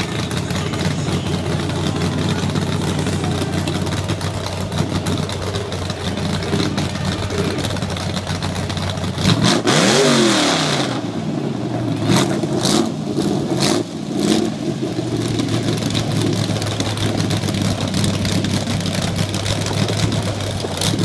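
Toyota pickup's engine running steadily while the truck sits bogged down in the mud pit. About halfway through it is revved hard, pitch rising then falling, followed by a few short sharp bursts.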